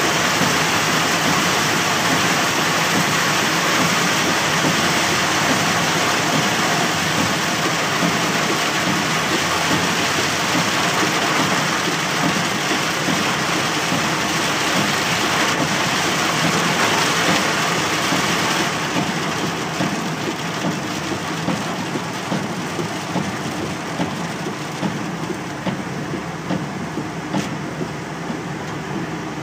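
Heavy rain pelting a moving car's roof and windshield, heard from inside the cabin, mixed with the hiss of tyres on the wet highway. The downpour eases somewhat about two-thirds of the way through.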